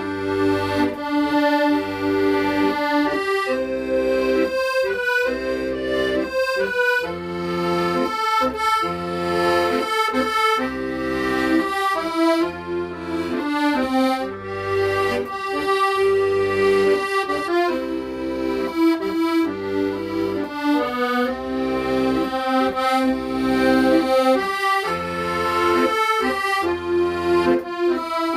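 Accordion playing a melody over a left-hand accompaniment of repeating bass notes and chords.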